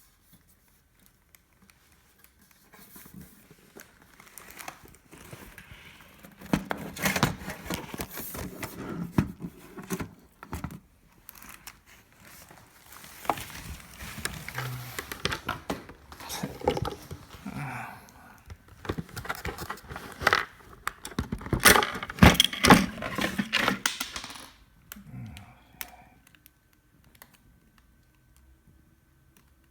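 Packaging being handled and pulled apart: crinkling and tearing, with many small clicks and knocks, in busy spells that stop about five seconds before the end.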